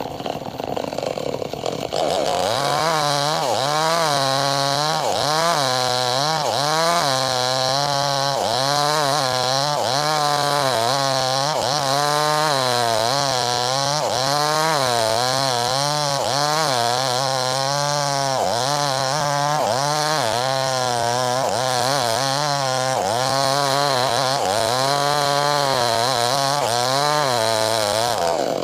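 Chainsaw running at high revs, cutting wood lengthwise. It picks up about two seconds in, and its pitch then keeps rising and falling, roughly once a second, as it cuts.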